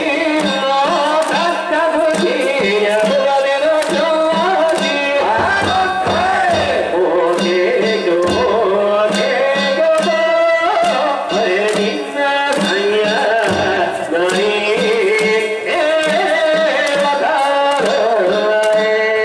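Danjiri festival music: a drum beaten in rhythm, with voices singing or chanting over it.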